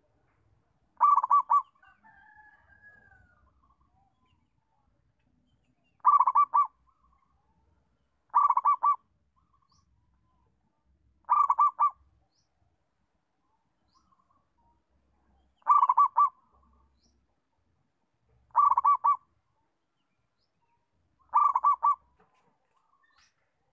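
Zebra dove (perkutut) singing its short rolling coo, each call a quick cluster of about four notes, repeated seven times at intervals of two to four seconds. A fainter wavering bird call sounds once, about two seconds in.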